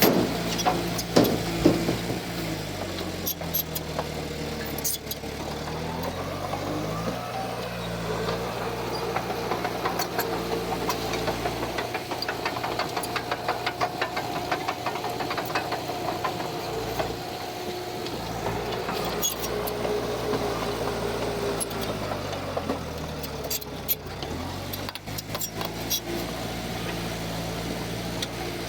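Diesel engine of heavy earthmoving equipment running under load; its pitch drops over the first few seconds and climbs again near the end. Rapid clicks and clatter sound through the middle.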